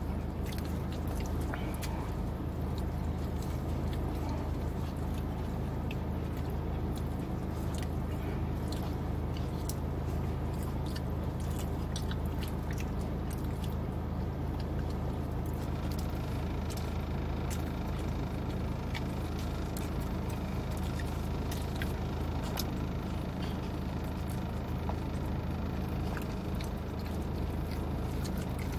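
Steady low hum inside a car cabin, with scattered small clicks and rustles of someone handling food and chewing.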